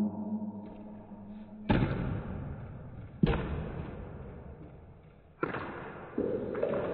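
Three sharp cracks of breaking boards struck by Taekwon-Do kicks and hand strikes, about one and a half to two seconds apart, each dying away in the room's echo. A steady noise takes over near the end.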